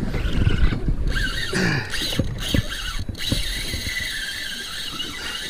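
A fishing reel's drag giving a steady high-pitched scream as a big fish, taken for an amberjack, pulls line off against it. The scream starts about a second and a half in and holds to the end, over the low rumble of wind and water.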